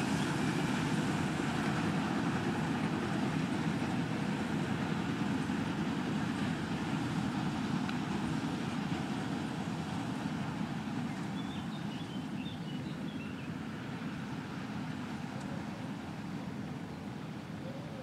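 New Holland T7.270 tractor's six-cylinder diesel running steadily under load, pulling a New Holland Roll-belt 190 round baler whose pickup and belts are gathering and rolling hay. A continuous mechanical drone that grows slowly fainter.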